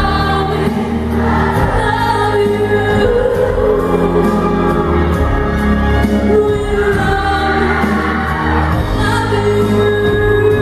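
Live music: a woman singing a slow ballad into a microphone over instrumental accompaniment.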